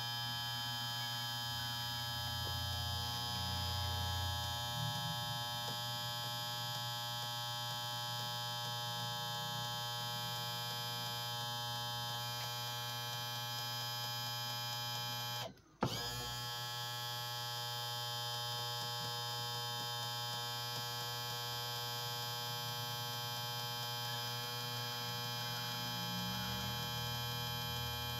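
Electric motor and hydraulic pump of a Showa power trim and tilt unit on a Yamaha 150 outboard, running steadily with an even hum while it tilts the engine up very slowly. It cuts out briefly about halfway through and starts again with a click.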